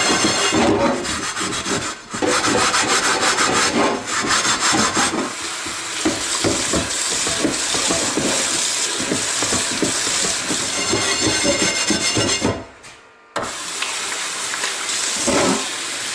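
A metal mesh scouring pad scrubbing rust off a cast-iron skillet in a stainless steel sink, rapid rasping strokes back and forth. About five seconds in, tap water starts running onto the pan and hisses on under the scrubbing, with a short break near the end.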